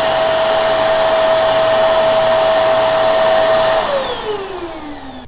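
Hart Pro upright vacuum running with a steady motor whine over rushing air. About four seconds in it is switched off, and the motor winds down with a falling whine as the noise fades.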